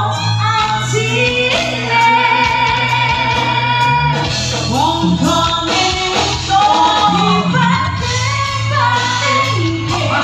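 A woman sings a Javanese campursari song through a microphone, with her voice wavering on the held notes. A gamelan and drum ensemble accompanies her, over a sustained low tone.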